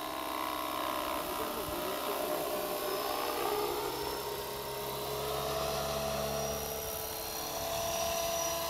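Radio-controlled Align T-REX 500 electric helicopter in an Airwolf scale body flying, a steady whine from its motor and gears over the rotor noise, getting a little louder near the end as it comes closer.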